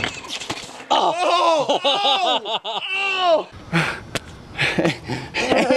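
A man laughing hard in a long run of rapid 'ha' bursts, after a brief skateboard roll at the start. A few sharp clacks and another short burst of laughter come near the end.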